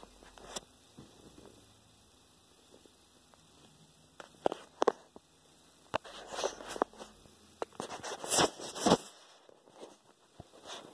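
Scattered sharp clicks and short rustling, scraping noises, most of them in the middle of the stretch: hands handling the camera and the laptop at close range.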